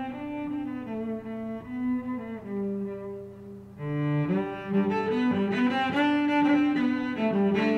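Background music of slow, sustained string-like notes, quieter briefly and then fuller and louder from about four seconds in.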